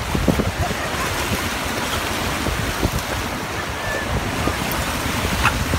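Shallow ocean surf washing steadily, with wind buffeting the microphone.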